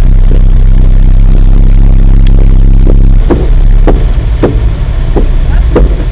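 A car wheel with missing wheel bolts knocking once per turn: a regular clunk a little under twice a second, coming in about three seconds in, over the steady low drone of the moving car. The knock is the sign of a loose wheel that is not held tight on its hub.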